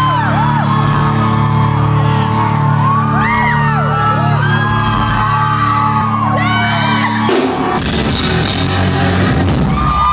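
Live rock band holding a loud sustained chord through a large hall, with fans screaming and whooping over it in many short high cries. About seven seconds in the held chord stops and a noisier stretch of band sound follows.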